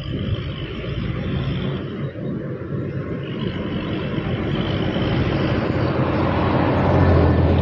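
Fendt tractor's diesel engine pulling a silage trailer, a steady low drone growing louder as it approaches and passes close by, loudest near the end.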